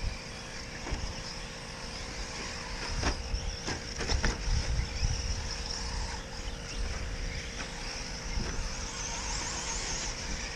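Radio-controlled 4x4 short-course trucks racing on a dirt track: a steady high whine from the trucks over wind rumbling on the microphone, with a few short knocks about three to four and a half seconds in.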